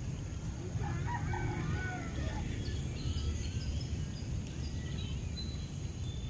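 A rooster crowing once, about a second in, over a steady low rumble. Faint high bird chirps follow.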